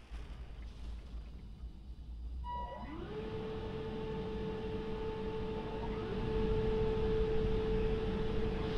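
Rollover car wash gantry's electric motor spinning up with a rising whine about two and a half seconds in, then holding a steady whine over a low rumble, heard from inside the car.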